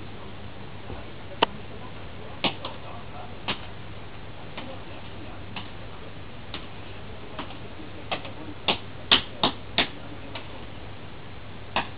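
A series of short, sharp clicks at uneven spacing, roughly one a second and bunching closer together about two thirds of the way in, over a steady low hum.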